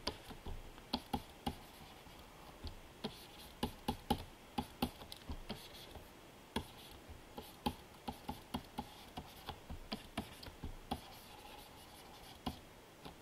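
Light, irregular clicks and taps, a few a second, of a pen stylus working on a Wacom Cintiq pen display, with keyboard keys, while shading is brushed in.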